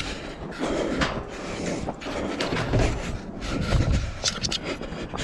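Irregular rustling, scraping and dull thumps of someone moving quickly on foot while carrying a handheld camera, with heavier low thumps about three and four seconds in.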